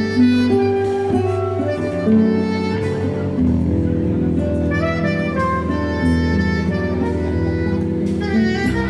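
Instrumental music with sustained melodic notes over held chords and bass.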